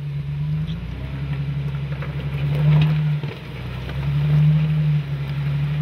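Lifted Jeep's engine revving in uneven bursts of throttle as it crawls up a rocky ledge, swelling and easing several times, with the strongest pushes about halfway through and again near the end.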